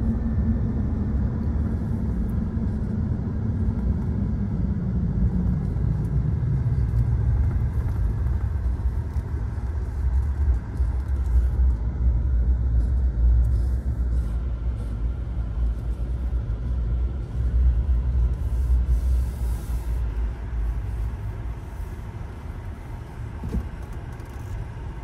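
Car cabin noise while driving slowly: a steady low rumble of engine and tyres, getting quieter near the end.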